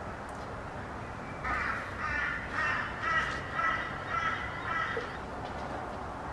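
A crow-type bird cawing, a run of about seven calls at roughly two a second, starting about a second and a half in, over a steady outdoor background hiss.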